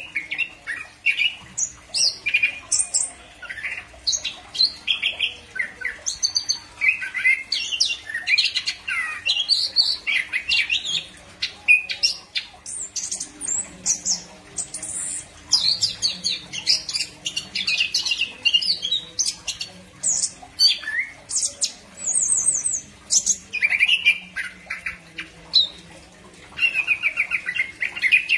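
Chestnut-capped thrush singing: a nearly unbroken run of quick, varied phrases of whistles, chirps and trills, changing pitch from phrase to phrase, with only brief pauses.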